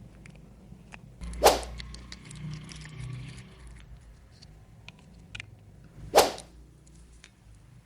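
Two sharp swishing snaps about five seconds apart, with light clicks and tapping from small plastic toy parts being handled between them.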